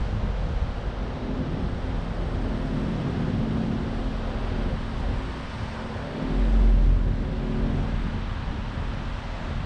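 Street traffic running past, a vehicle's engine hum held for several seconds, with wind buffeting the microphone. A low rumble swells about six seconds in.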